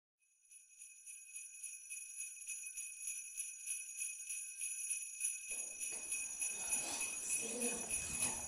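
Jingle bells shaken in a steady rhythm, fading in from silence. About five and a half seconds in, a lower, fuller sound joins underneath them.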